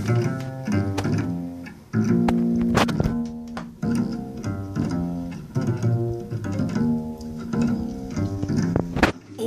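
Recorded music played through a car audio system: an instrumental passage with plucked bass and string instruments in a steady rhythm, before the vocals come in.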